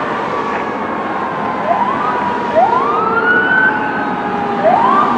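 Fire engine siren wailing, its pitch slowly falling, then pushed back up in three quick rising sweeps, about one and a half, two and a half and four and a half seconds in. Traffic noise runs beneath it.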